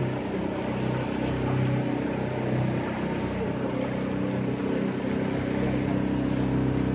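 Small tour boat's engine running steadily under way, a constant low drone, with the rush of water and wind against the hull.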